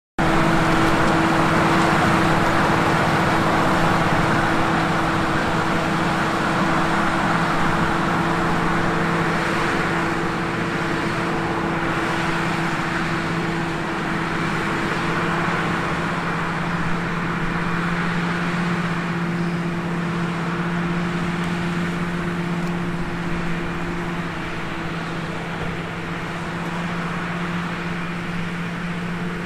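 Komatsu GD655 motor grader's diesel engine running at a steady pitch as the machine works across loose, rocky dirt.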